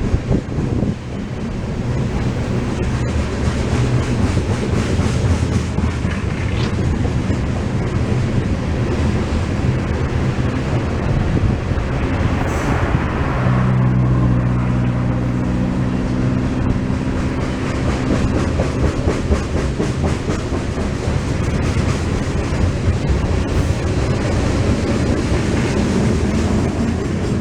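Loaded ethanol tank-car freight train rolling past, a steady rumble of wheels on rail. About halfway through, a low steady hum comes in for several seconds.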